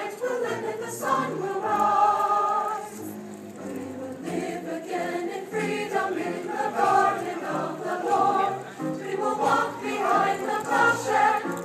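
A choir singing in harmony, with several voices holding sung notes together.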